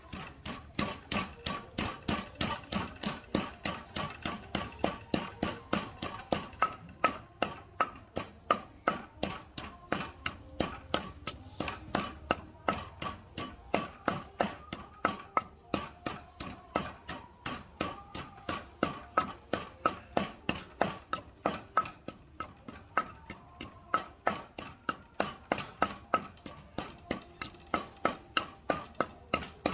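Steady rhythmic knocking, about two or three sharp strikes a second, with faint sustained tones underneath.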